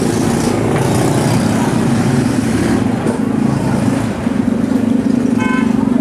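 A vehicle engine running steadily close by, with a short horn toot near the end.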